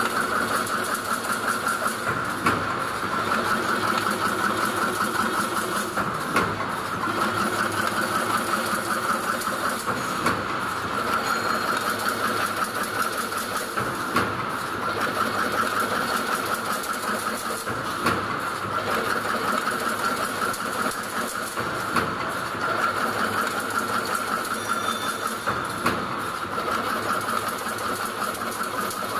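Automatic double-wire chain link fence machine running as it weaves diamond wire mesh: a steady, fast mechanical clatter with a sharper knock about every four seconds.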